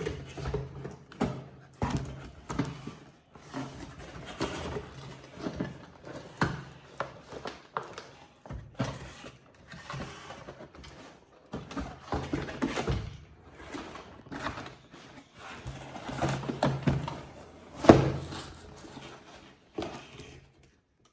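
Plastic packaging of a toy set rustling and clicking as small toy pieces are handled and pulled out of it, in irregular spurts, with one sharper knock near the end.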